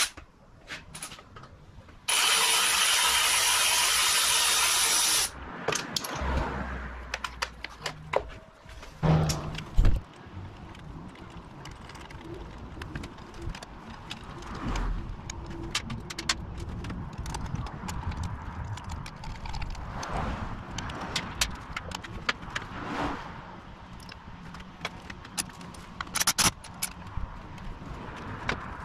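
Clicks, knocks and ratcheting of hand tools and metal hardware as aluminium handguard backbones are bolted to a motorcycle handlebar. A loud steady hiss starts about two seconds in and cuts off abruptly some three seconds later.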